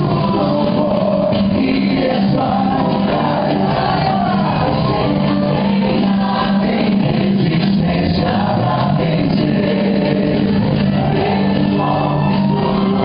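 Loud Christian worship song with singers and a full band over sustained low notes, playing as a dance backing track.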